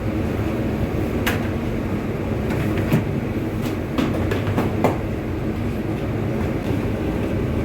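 Bakery machinery running with a steady low rumble, and sharp clicks and clanks every second or so.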